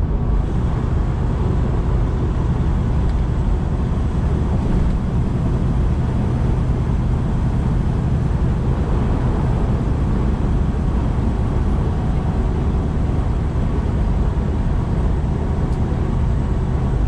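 Semi-truck at highway cruising speed, heard from inside the cab: a steady diesel engine drone with tyre and road noise, unchanging throughout.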